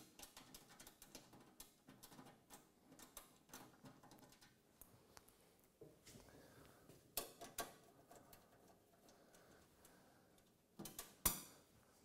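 Near silence with faint clicks and light taps of a screwdriver and small screws being handled. A few sharper knocks stand out, two about seven seconds in and two near the end.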